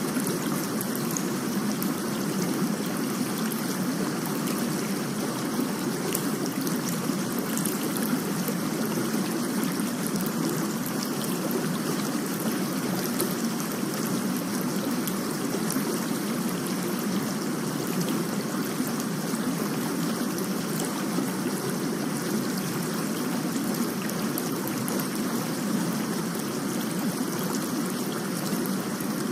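Steady recorded rain: an even, rushing water hiss that does not let up, with scattered faint ticks of drops.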